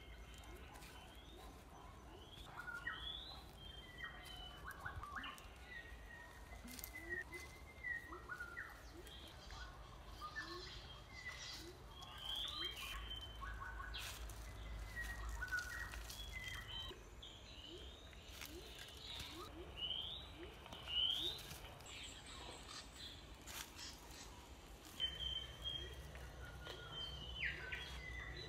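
Birds chirping and whistling in repeated short calls, with a few faint knocks scattered among them.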